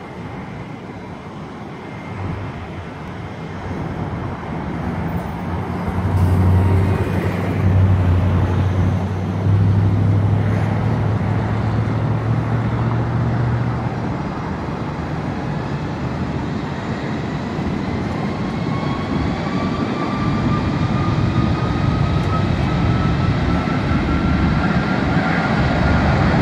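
Airbus A330-200 jet engines at takeoff thrust during the takeoff roll. A deep rumble builds and is loudest as the airliner passes, about six to fourteen seconds in. It then runs on strongly, with a thin whine rising slowly in pitch near the end.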